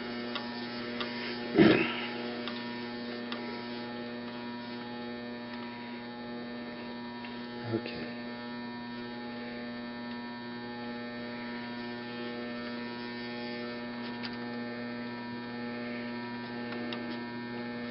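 Treadmill motor turning a bare Tecumseh HH120 engine block and flywheel slowly as an engine simulator, giving a steady electrical hum, with the speed held just below where the ignition begins to spark. One brief click about two seconds in.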